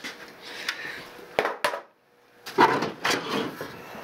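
Hard 3D-printed PLA plastic armor pieces being handled: a few light clicks and knocks, then a louder scraping and rustling of the plastic shells about two and a half seconds in.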